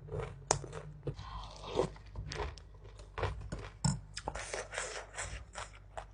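Close-miked mouth sounds of someone biting and chewing bakso meatball soup: a run of irregular short clicks and smacks.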